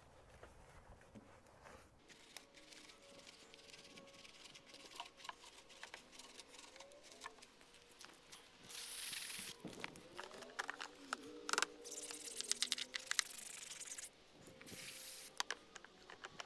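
Faint spraying and scrubbing while cleaning a car's wheels: two short hissing bursts several seconds apart, with a quick run of clicks between them.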